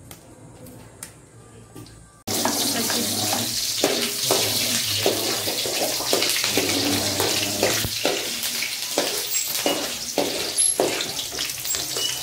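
Garlic and onion sizzling in hot oil in an aluminium wok, stirred with a metal spatula that scrapes and taps the pan in repeated irregular strokes. The sizzle starts abruptly about two seconds in, after a quiet stretch with a few faint clicks.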